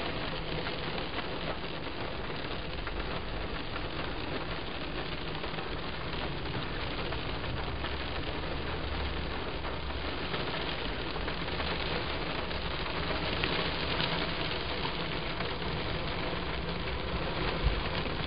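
Steady rain falling on a car's roof and windows, heard from inside the car.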